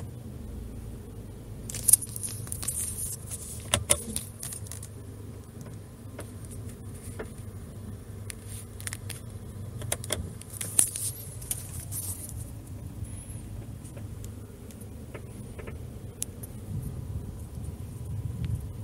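A tripod making an abnormal noise: scattered sharp clicks and scratchy creaks from its joints or head, heard over a low steady hum.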